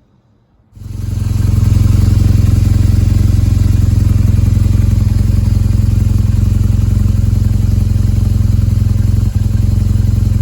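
BMW R1200GS boxer-twin motorcycle engine running steadily, coming in loud about a second in and holding an even note.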